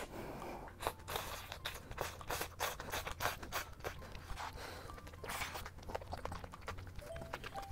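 Close-miked mouth sounds of a person eating chewy stir-fried udon noodles: wet chewing clicks and smacks in quick succession.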